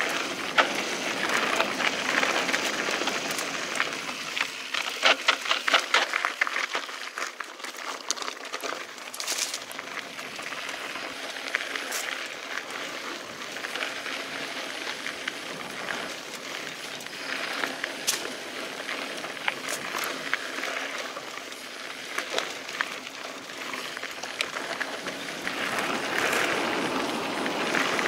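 Mountain bike rolling over a dirt and rocky singletrack trail: a steady tyre rumble, with the bike rattling over bumps and a stretch of rapid clattering about five seconds in.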